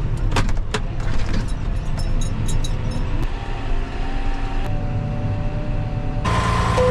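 A tractor's diesel engine running steadily under load while winching a stuck recovery truck out of deep mud, with a few sharp clicks in the first second and a faint whine in the middle. A louder rush of noise sets in near the end.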